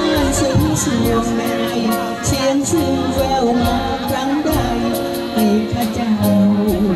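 A woman singing a Thai luk thung song live with a band of accordion, guitar and drums, the singing voice wavering over steady accordion chords and a regular cymbal tick.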